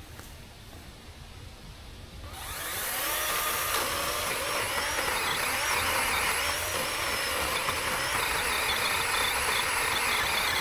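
A small, low-powered chainsaw, quiet at first, comes up to speed about two seconds in and runs steadily as it cuts into a tough tree trunk, its pitch wavering slightly under load.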